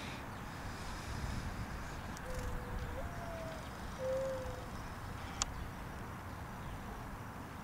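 A mourning dove cooing: a low note that steps up into a higher held note, then a shorter falling note, over a steady low outdoor rumble. A single sharp click comes about two-thirds of the way in.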